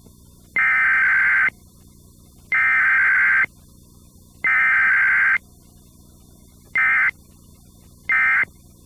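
Emergency Alert System SAME data tones: three bursts of about a second each, a second apart, then two short bursts about a second and a half apart. This is the header sent three times followed by the end-of-message code of an EAS test. A faint hum fills the gaps.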